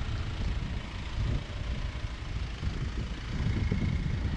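Wind rumbling and buffeting on the microphone in uneven gusts, over a steady hiss.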